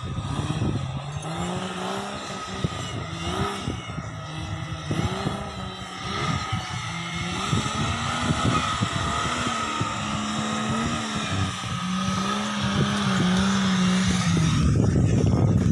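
Off-road 4x4 engine working hard on the course, its revs rising and falling as it pulls through the terrain, with a surge of noise near the end.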